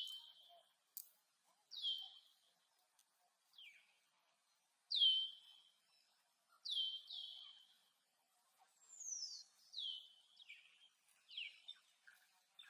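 Repeated short, high-pitched chirping calls, about one a second, each dropping quickly in pitch and then trailing off.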